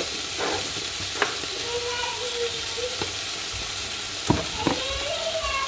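Minced chicken sizzling as it fries in a pan, with a few sharp knocks against the pan, the loudest two close together near the end.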